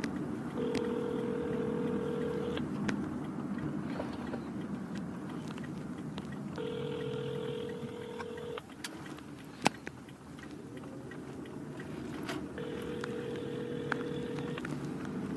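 Telephone ringback tone ringing three times, each ring about two seconds long with about four seconds between, heard over the steady rumble of a car's cabin. A single sharp click comes about ten seconds in.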